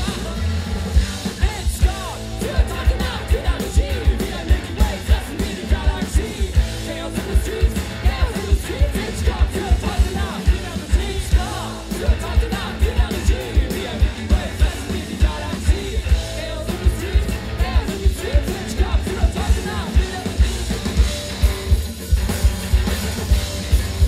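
Live punk-rock band playing: a drum kit keeping a steady beat of about two strong hits a second under electric guitars, with a man singing into the microphone.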